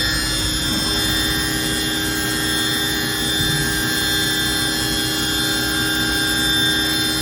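Haas VF-0 CNC vertical machining center running under power: a steady mechanical hum with several constant whining tones over a rushing noise.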